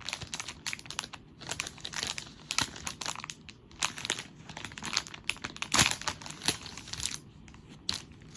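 Packaging crinkling and tearing as it is pulled open by hand, in a dense irregular run of crackles that thins out about seven seconds in.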